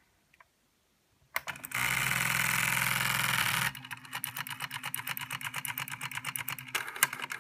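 Sega SP-400 plotter printer's ALPS pen-plotter mechanism running its power-on self test: after a short silence its stepper motors buzz loudly and steadily for about two seconds, then switch to a quick run of rapid clicks as the pen carriage steps.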